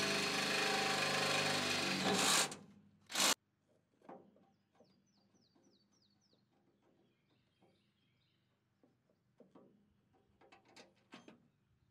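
Cordless drill running steadily for about two and a half seconds as it bores a bolt hole for a toolbox mount, then one short second burst. Light clicks and rattles of bolt hardware being handled follow.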